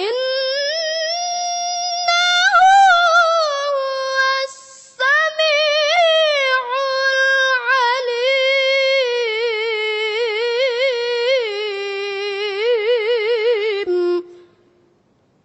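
A reciter's voice holds a long melodic phrase of Quran recitation in tilawah style, with quick wavering ornaments on the high notes. There is a brief breath about five seconds in, and the phrase ends about fourteen seconds in.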